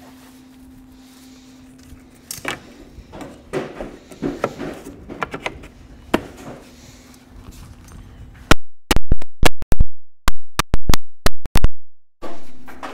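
Wooden parting bead being tapped into the slot of a historic window frame with a hammer. A few light knocks and handling noises come first, then a quick run of about a dozen loud, sharp strikes over three to four seconds, over a faint steady hum.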